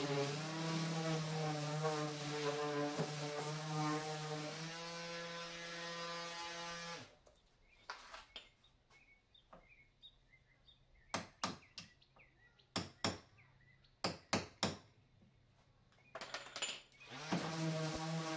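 Electric random orbit sander running against the wooden frame with a steady hum, then running free once lifted off, and switched off about seven seconds in. A few sharp knocks and clicks follow in the quiet, and the sander starts up again near the end.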